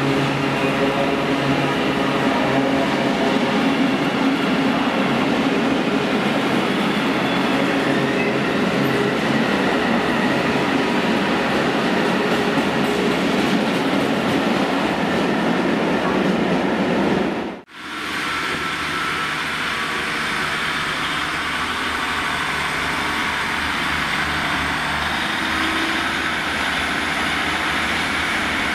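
Long freight train of covered steel-coil wagons rolling past at speed: a steady, loud rumble of wheels on rail. About 18 seconds in the sound cuts off suddenly and gives way to a steadier, slightly lower rumble as a two-car diesel passenger unit moves through the station.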